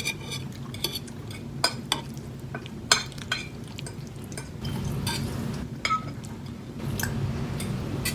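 Forks clinking and scraping against plates during a meal, with a few sharp clinks spread through. Under them runs a low steady hum that grows louder about halfway through.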